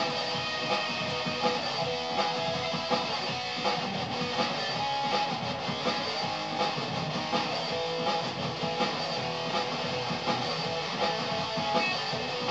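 Electric guitar being strummed, a Stratocaster-style instrument, with a steady beat accented about every three-quarters of a second.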